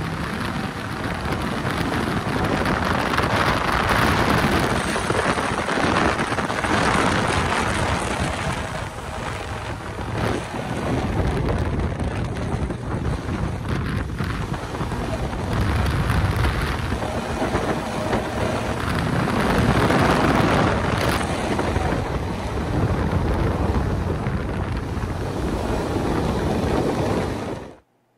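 Small motorboat running under way at speed, its engine noise mixed with water rushing past the hull and wind buffeting the microphone, the rush swelling and easing a little; it cuts off suddenly near the end.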